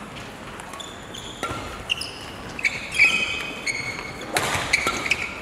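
Badminton rally on an indoor court: sharp racket strikes on the shuttlecock and short, high squeaks of players' shoes on the court floor, busiest in the second half.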